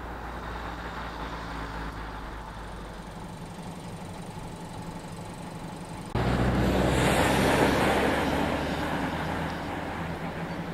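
Road traffic: a vehicle engine hums steadily, then after an abrupt cut about six seconds in, a louder vehicle sound swells and fades as it passes.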